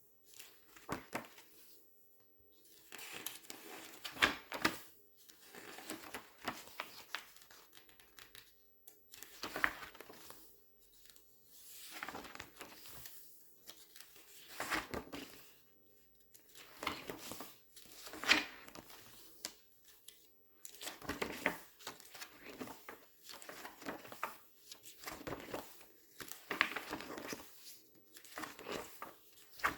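Glossy magazine pages being turned and squeezed close to the microphone, crinkling and crackling in repeated handling bursts every two to three seconds with short quiet gaps between.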